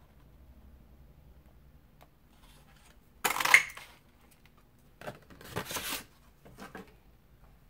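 Craft tools and supplies being handled on a table: clattering and rattling in three bursts, the first and loudest about three seconds in, the others shorter a couple of seconds later.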